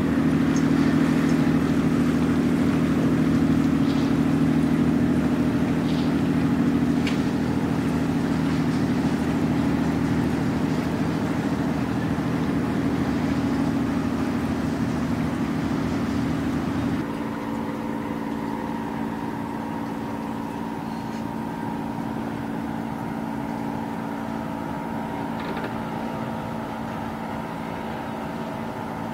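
Small speedboat's engine running at speed, a steady hum that fades a little as it goes. About seventeen seconds in it cuts off abruptly to a quieter, steady engine hum.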